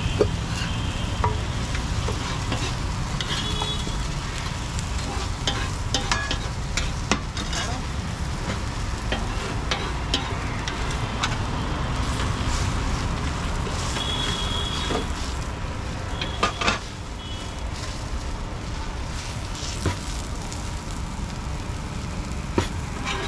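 Dosa batter and paneer filling sizzling on a flat iron griddle, with scattered sharp clicks and scrapes of a metal spatula working the filling across it. Road traffic rumbles steadily underneath.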